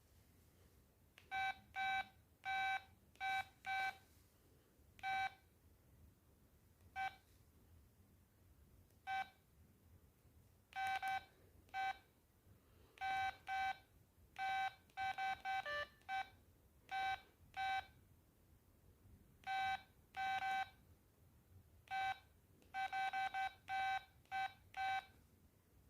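Button beeps from an LG MD5330 mobile phone: short beeps of a single pitch, at an irregular pace with some quick runs, as its keys are pressed to move through the menus. Midway there is one brief run of tones that falls in pitch.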